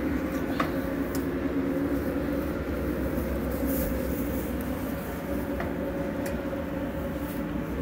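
Steady machine hum, a motor or engine running evenly, with a few faint clicks.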